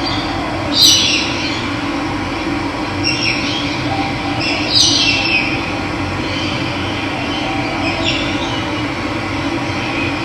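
Steady rush of running water with a bird calling over it: short calls that slide down in pitch, repeated every two to three seconds, the loudest about a second in and near five seconds.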